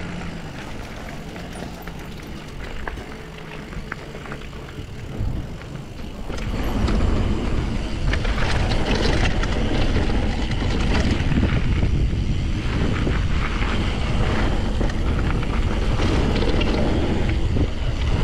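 Mountain bike rolling along a gravel and dirt trail, with tyre noise and rattling of the bike over the rough surface and wind rushing on the microphone. It gets louder from about six seconds in, as the bike goes downhill.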